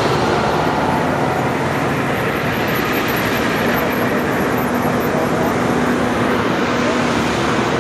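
Fire trucks driving past on a street, a ladder truck and then a rescue truck, their engines running and tyres on the road making a steady, continuous vehicle noise.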